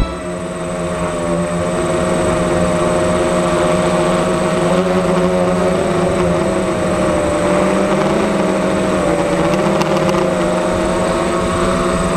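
Electric motors and propellers of an FPV multirotor whirring, heard from the craft's own onboard camera: a steady, loud hum whose pitch wavers slightly.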